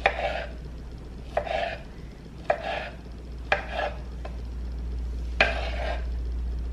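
Knife working through soft peaches on a cutting board: six strokes about a second apart, each a sharp tap on the board followed by a short scraping slice.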